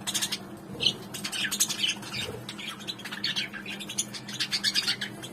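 Many small birds chirping busily, short high calls overlapping one another without pause, over a faint steady low hum.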